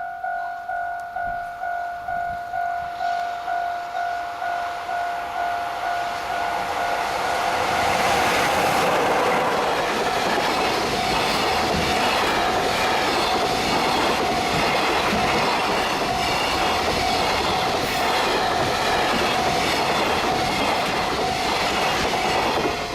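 Japanese level-crossing warning bell ringing a little under twice a second. About seven seconds in, a container freight train hauled by an EF66 electric locomotive arrives and passes at speed, its wagons' wheels clacking over the rail joints in a steady loud rush. The bell keeps ringing underneath.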